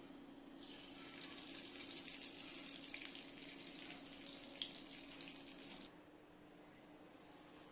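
A spoonful of ghee sizzling faintly as it melts in a hot nonstick pan, with a few small pops; the sizzle starts about half a second in and cuts off abruptly near six seconds. A steady low hum runs underneath.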